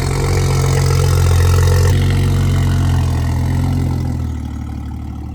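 A car engine idling steadily, easing a little quieter about four seconds in.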